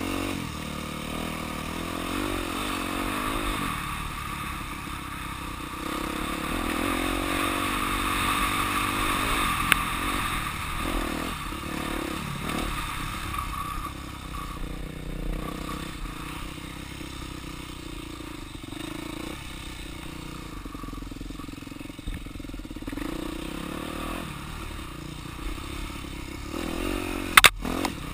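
Dirt bike engine running under way on a trail, its revs rising and falling with the throttle. A sharp clack near the end is the loudest sound.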